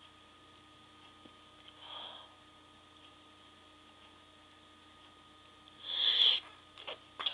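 A woman's nose: a short sniff about two seconds in, then a much louder, sharp stifled sneeze, held in through the nose, about six seconds in, with a couple of faint clicks and another sniff at the very end.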